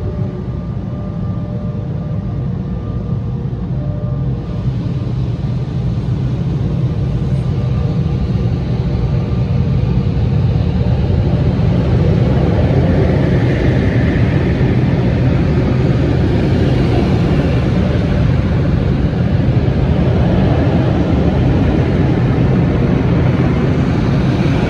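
AVW tunnel car wash heard from inside the car: the spinning red cloth wraparound brushes scrub along the car's side with a dense, steady rumble. The rumble grows louder through the first half and gets a brighter, hissier edge about four seconds in.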